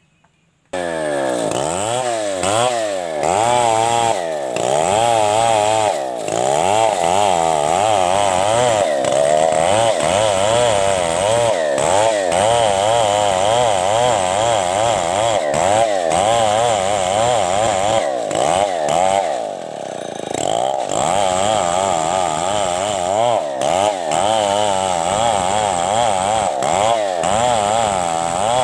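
STIHL two-stroke chainsaw ripping lengthwise through a coconut palm trunk, its engine pitch wavering up and down under load as the bar works along the cut. It starts abruptly about a second in.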